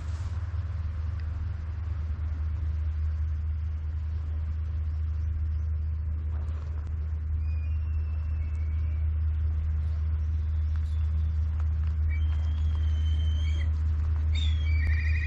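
A steady low rumble that grows slightly louder, with short high bird chirps joining from about halfway in and a quick trill near the end.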